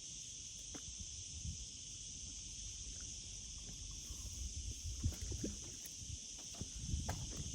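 Steady high-pitched insect drone over low wind rumble on the microphone, with a few light knocks and rustles.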